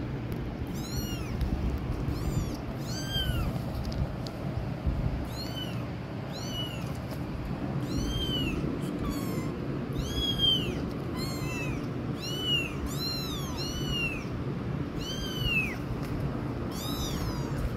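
Young kittens mewing over and over, about twenty short high-pitched cries, each rising and then falling in pitch. A steady low background noise runs underneath.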